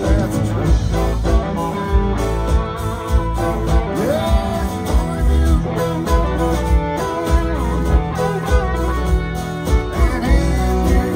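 Live country band playing with a steady beat: fiddle and acoustic and electric guitars over bass and drums.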